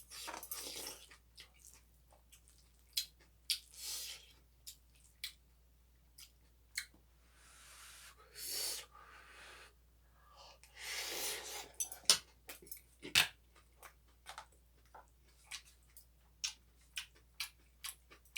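Close-up eating sounds: chewing and mouth smacking on fried rice, with many sharp spoon and tableware clicks and a few longer noisy rushes of about a second each.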